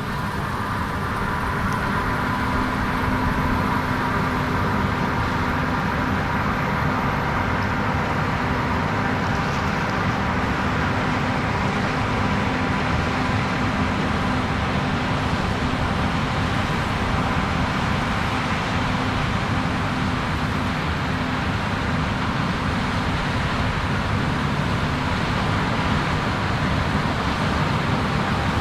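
Heavy harvest machinery running steadily: a loud, even drone of large diesel engines and working gear that comes in suddenly at the start and holds without change.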